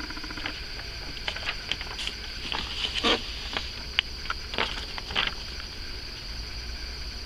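Paper signs being handled and swapped, rustling and crinkling in short irregular bursts, loudest about three seconds in, over a steady high-pitched hiss.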